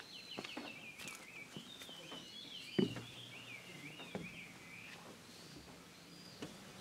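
A bird singing a continuous, wavering warble for about five seconds, over footsteps on wooden stair treads, with one heavier footfall about three seconds in.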